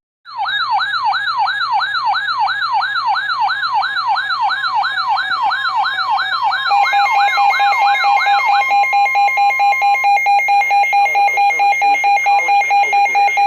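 Emergency alert siren tone: an electronic wail sweeping rapidly up and down about three times a second. About halfway through, a steady pulsing tone takes over and continues to the end.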